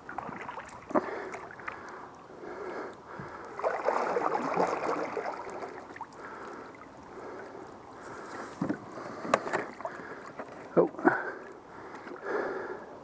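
Water splashing and sloshing in uneven bursts, loudest about four seconds in, with a few sharp knocks near the end.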